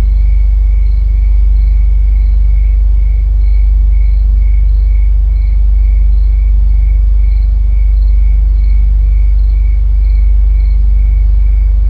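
Loud, deep, steady rumble with a high cricket-like chirp repeating evenly about two to three times a second.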